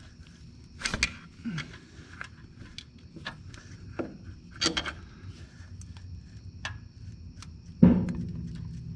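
A flat steel pry tool knocking and scraping against the brake actuator rod seal and its housing while prying at the seal to get it out. It makes a few sharp metal clicks and knocks, and the loudest clank near the end rings on briefly.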